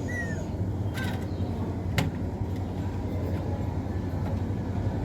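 Steady low outdoor rumble like distant traffic, with a brief high chirp near the start and a single sharp click about two seconds in.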